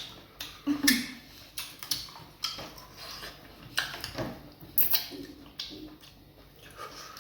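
Close-miked eating of fufu and vegetable soup: irregular wet smacks and clicks of chewing and handling the food, with light clinks of dishes.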